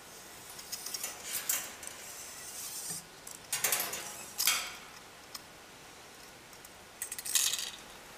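Coiled steel throttle return spring and cable scraping and clinking against a Bing 54 carburetor as the cable and spring are fed into the carburetor bore, in three short bursts of metallic rattling over a low steady hiss.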